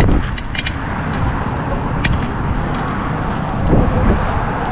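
Steady low rumble of road traffic, with a few short clicks and a brief faint voice near the end.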